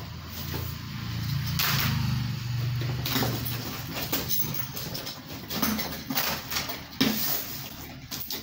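Plastic packing strap being pulled off a cardboard box and the box being handled: scraping, rustling and scattered knocks of cardboard on a wooden table. A low hum runs under the first three seconds.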